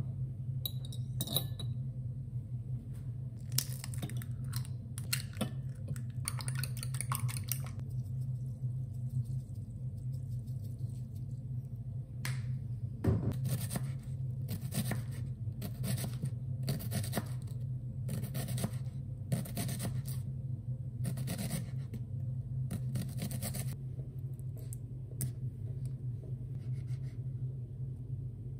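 Kitchen knife chopping an onion on a wooden cutting board: sharp knocks and scrapes of the blade, scattered at first, then about one stroke a second in a steady run through the second half, over a steady low hum.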